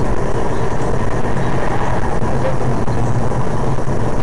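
Steady loud rumble of a vehicle driving: engine and road noise.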